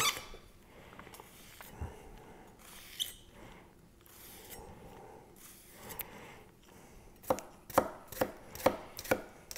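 An 8670 high-carbon steel chef's knife slicing quietly through an onion, then, about seven seconds in, chopping it against a wooden cutting board in a quick run of about six knocks, roughly three a second.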